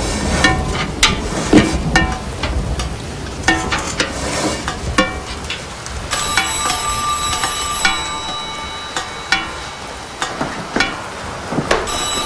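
Water dripping into a metal bucket, a pinging drop about every half second. About six seconds in, an old telephone bell rings for about two seconds, and it starts ringing again near the end.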